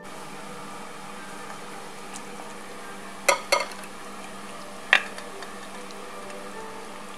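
Stainless steel saucepan and wooden spoon knocking sharply against a ceramic bowl three times, two knocks close together and a third about a second and a half later, as ratatouille is scraped out of the pan. A steady hiss runs underneath.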